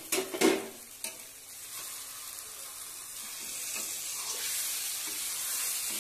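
Aloo palak sabzi sizzling in a kadhai as a spatula stirs it, with a few sharp metal knocks in the first second. The sizzle grows louder over the next few seconds and then holds steady.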